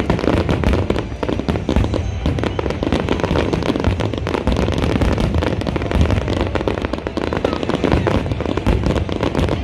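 Fireworks exploding in a rapid, continuous barrage, bangs and crackles following each other with hardly a gap.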